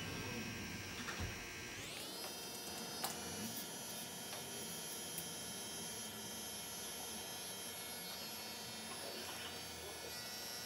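A barber's handheld electric hair-cutting tool buzzing as it cuts the bald line of a skin taper. Its motor whine glides up in pitch about two seconds in, then runs steadily.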